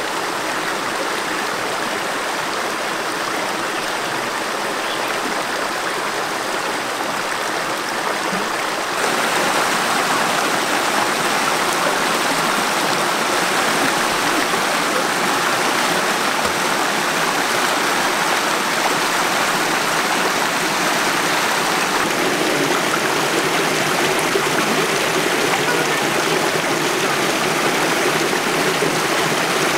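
Shallow rocky stream rushing over stones: a steady wash of running water that gets louder about nine seconds in.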